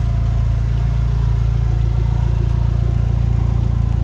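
A car engine idling steadily, with a low, evenly pulsing tone.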